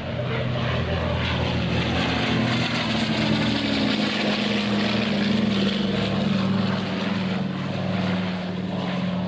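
C-47 Skytrain's twin radial engines running at full takeoff power as the aircraft lifts off and climbs past. It is a steady, loud propeller drone whose engine note slides slightly lower as it goes by.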